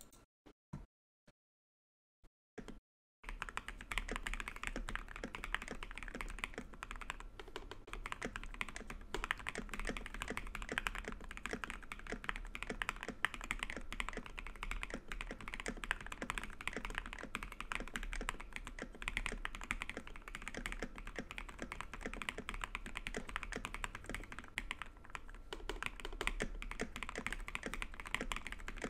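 Typing on a custom Ikki68 Aurora mechanical keyboard with lubed, filmed JWK Quartz linear switches, an aluminium plate, silicone gaskets and PBT keycaps: a few single clicks in the first three seconds, then a steady, fast stream of keystrokes.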